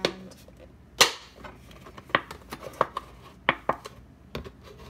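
Plastic gel bottles being cut and handled on a granite countertop: a run of sharp clicks and knocks of hard plastic, the loudest about a second in.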